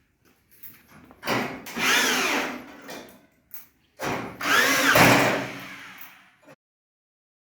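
Electric drill run twice, each run of about two seconds speeding up and then winding back down. The sound cuts off suddenly near the end.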